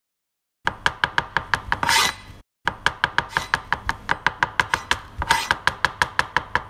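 Kitchen knife chopping a shallot on a glass plate: rapid, even taps about six a second. There are two short scrapes, about two and five seconds in.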